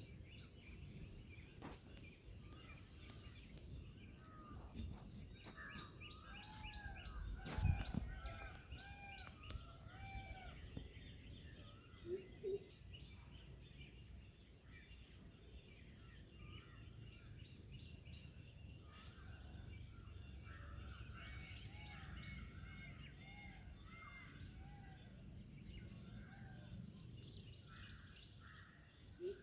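Mixed chorus of small birds chirping over a steady high-pitched insect drone, with a short, lower-pitched call about twelve seconds in and a single knock near eight seconds.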